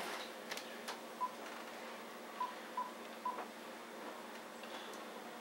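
Cell phone keypad beeping as a number is dialed: four short, faint beeps at irregular intervals, one per key press.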